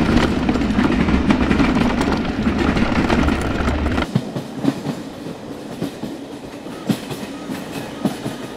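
Train running on rails: a loud close rumble that drops abruptly about four seconds in to a quieter run, with scattered sharp wheel clacks over the rail joints.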